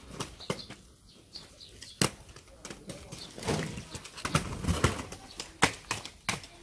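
Inline skates on concrete: a series of sharp knocks and clicks from the wheels and boots, with stretches of rolling and scraping between them.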